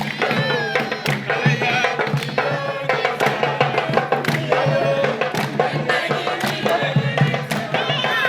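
A group of young voices singing together over a fast percussion beat, as in a campfire song.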